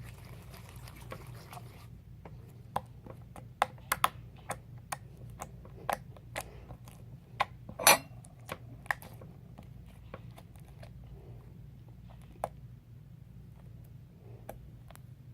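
Sticky slime being squeezed and pulled by hand, giving a scatter of sharp little clicks and pops, the loudest about eight seconds in and fewer after ten seconds. Under it runs a steady low rumble of bathwater.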